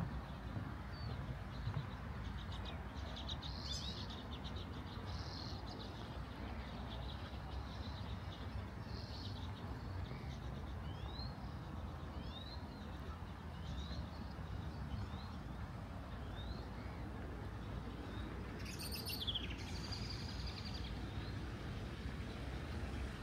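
Small birds calling on and off, mostly short rising chirps repeated every second or so through the middle, with one louder falling note near the end. Under them runs a steady low rumble of outdoor background noise.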